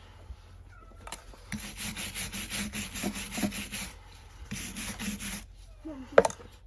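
Farrier's rasp filing a horse's hoof in quick back-and-forth strokes, in two spells, followed by a single sharp knock near the end.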